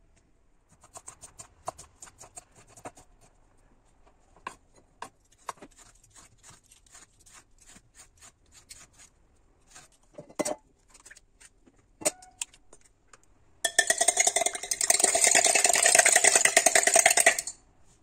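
A vegetable peeler scraping along a courgette in a run of short strokes, then a couple of knocks on the board. The loudest part comes for about four seconds near the end: a fork beating eggs fast in a glass jug, clattering against the glass.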